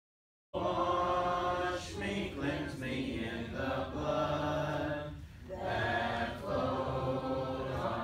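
Church congregation singing a hymn a cappella, unaccompanied voices in parts led from the pulpit. The singing cuts in abruptly after half a second of dead silence and runs in long phrases, with a short breath between phrases about five seconds in.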